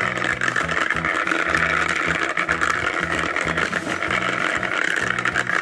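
Small electric motor of a tornado maker toy running steadily, whirring as it spins the water in its cone into a vortex, with Lego minifigures churning in the water.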